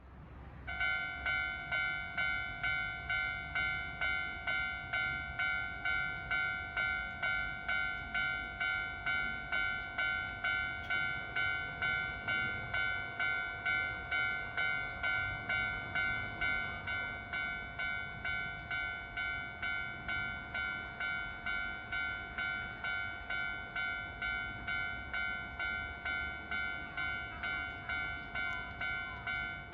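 Japanese railway level-crossing warning bell ringing with an even, repeated ding, about two strikes a second; it signals that a train is approaching and the crossing is closed.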